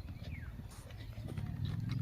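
Close-up chewing of raw vegetables: a steady low mouth rumble with faint crunching clicks.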